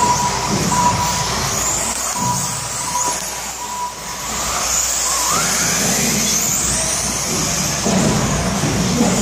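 Radio-controlled 4WD buggies racing on indoor carpet: motors whining and gliding up in pitch as they accelerate, over tyre and chassis noise. Short steady electronic beeps recur every second or so, with a pause in the middle.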